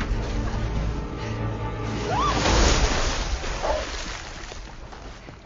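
Tense film score with low, steady drones. About two seconds in, a short rising cry and a loud rushing whoosh come in, then the sound fades away.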